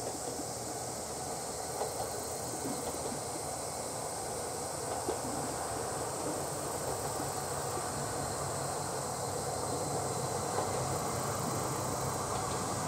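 Akechi Railway single-car diesel railcar approaching, its engine and running gear slowly growing louder. A continuous high buzz of insects runs underneath.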